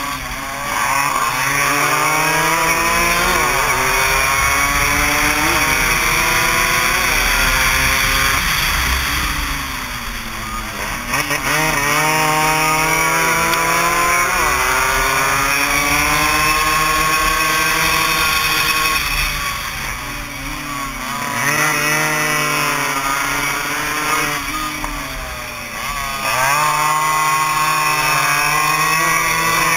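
Small two-stroke single-cylinder racing motorcycle engines of the AX 100 class, heard from on board at speed. The revs climb in pitch, drop at each gear change, and fall away as the rider backs off for corners, with wind rushing over the microphone.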